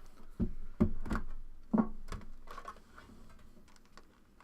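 Trading cards and their packaging being handled: about five light taps and knocks in the first two seconds or so, then fainter clicks and rustling.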